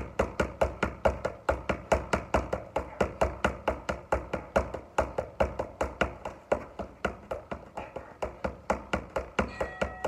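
Boxing-gloved punches smacking into focus mitts in a fast, unbroken flurry, about four hits a second, stopping at the very end.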